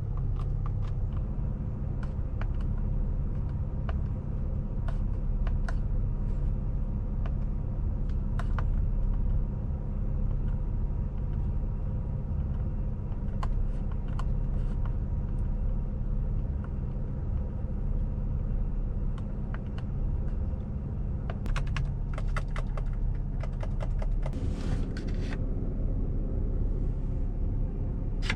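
Inside the cab of a 2019 Chevrolet Colorado 4WD pickup driving off-road: a steady low drone from its 3.6-litre V6 petrol engine and the running gear, with scattered sharp clicks and knocks throughout and a dense flurry of them a little after twenty seconds in.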